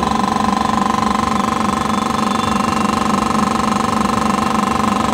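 Hamni AHP 2500 air-operated hydraulic pump running steadily under high pressure, a continuous mechanical buzz with a fast, even pulse.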